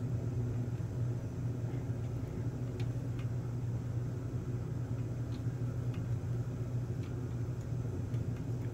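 Steady low mechanical hum of room ventilation, with a few faint light clicks from hands handling a GT2 timing belt and the printed extruder carriage.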